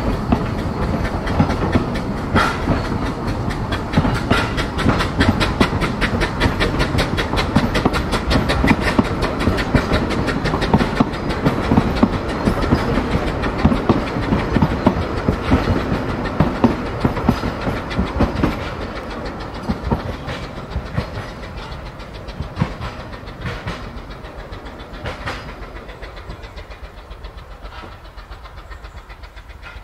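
Vale of Rheidol 2-6-2T narrow-gauge steam tank locomotive and its coaches running past, the wheels clattering in a fast, regular rhythm. The sound fades steadily from about two thirds of the way through as the train draws away.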